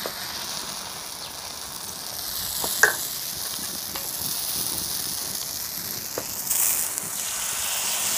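Puda batter frying in oil on a hot tawa griddle: a steady sizzle, with a few light clicks and a short louder patch late on.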